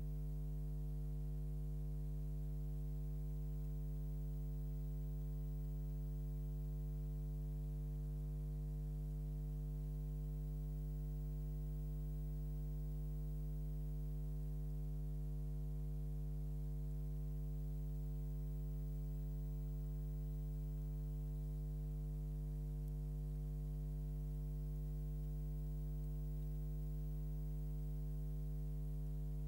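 Steady electrical mains hum, a low buzz with a ladder of overtones, unchanging throughout.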